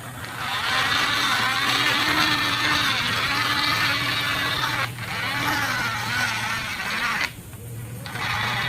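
Small electric motor and gears of a toy vehicle whirring as it drives, in three runs with brief stops about five seconds in and again near the end.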